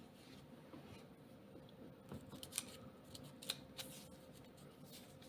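Faint handling noises of paper banknotes: soft rustles and light clicks, a few sharper ticks between about two and four seconds in.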